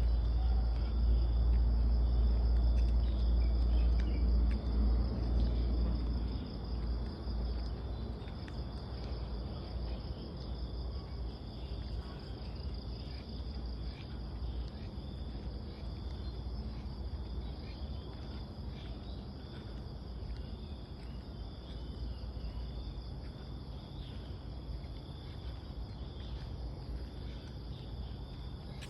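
Countryside ambience: a steady chorus of insects trilling without a break, over a low rumble that is louder for the first six seconds and then eases.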